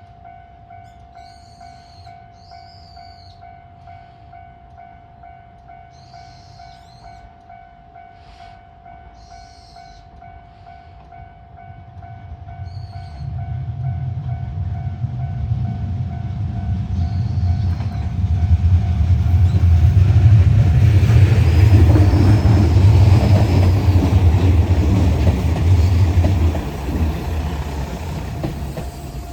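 Level crossing warning bell ringing steadily while a diesel train approaches, passes with a rising, heavy low rumble loudest in the second half, and begins to fade near the end. Birds chirp a few times in the first half.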